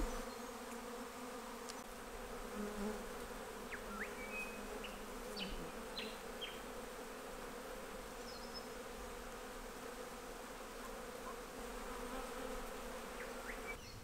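Swarm of honeybees humming steadily while clustered in a tree. A few brief high chirps come through around the middle.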